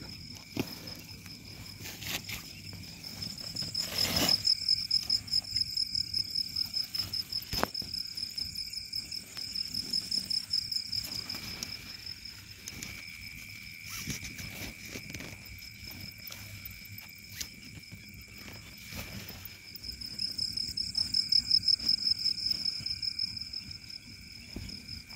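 Night crickets trilling steadily in fast pulses, with a second, lower insect tone beneath. The trill swells loudest from about four to ten seconds in and again near the end. Scattered clicks and rustles come from a tent pole and nylon tent fabric being handled.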